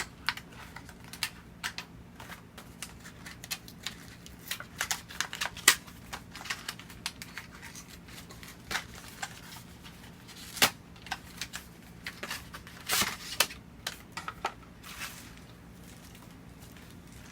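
Hands handling a Lexar SSD and its packaging: irregular clicks, taps and crinkling, with a few sharper clicks about six and eleven seconds in and a cluster near thirteen seconds.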